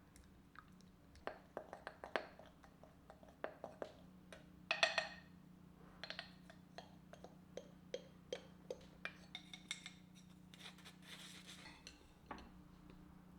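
Household objects being handled: a string of light clicks and knocks, with a brief ringing clink about five seconds in, over a faint steady hum.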